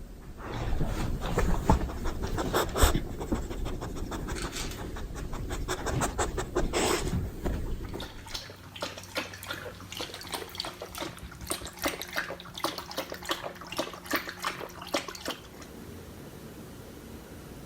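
Beagle panting in quick wet strokes, in two stretches that end about three seconds before the close. A faint steady hum sits behind the second stretch.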